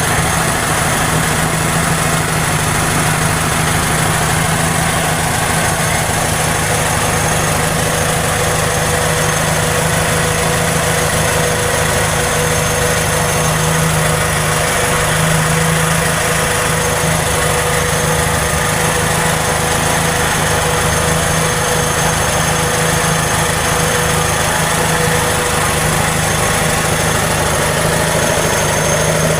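Toyota 2E inline four-cylinder engine idling steadily with an engine knock.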